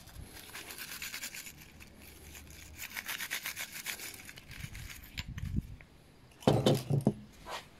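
A steel wire brush scrubbing the aluminium gasket face of a small trimmer carburetor, in rapid back-and-forth strokes of about six a second. It is scraping off the remains of the old gasket stuck to the carburetor body. The scrubbing stops, and near the end there are a couple of louder knocks.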